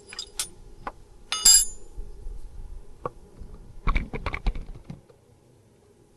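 Small metal objects clinking and rattling: a few sharp clicks, a bright metallic ring about a second and a half in, and a quick cluster of clinks around four seconds in.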